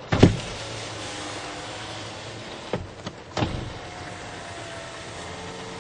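2015 Toyota Corolla power window motor moving the door glass, starting with a click. It runs steadily, stops with a clunk about three seconds in, then starts again and runs in the other direction.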